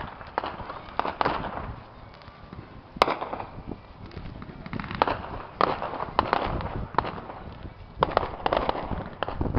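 Aerial fireworks going off in a steady run of sharp bangs and crackles. The loudest single bang comes about three seconds in, and there are dense bursts of crackling about a second in, around five to six seconds in, and again near the end.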